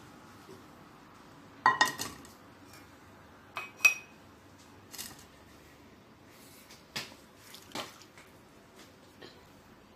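A stainless-steel tea strainer, a saucepan and ceramic teacups clinking against each other and on a stone countertop while tea is strained. There are scattered knocks: the loudest pair comes about two seconds in, then a pair near four seconds and lighter clinks later, some with a short ring.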